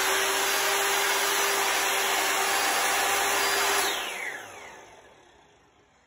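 Electric miter saw cutting molding, its motor and blade running at full speed with a steady whine. About four seconds in it is switched off and spins down, its pitch falling as it fades.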